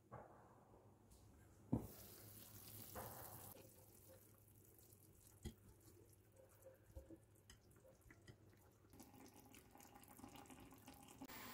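Faint simmering of chicken drumsticks in sauce in a frying pan. A single sharp clink about two seconds in as the glass lid comes off, then a few light ticks of a fork against the drumsticks and pan.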